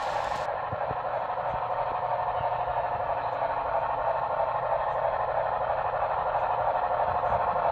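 HO scale model train approaching on the layout: a steady running hiss with a low motor hum, growing slowly louder.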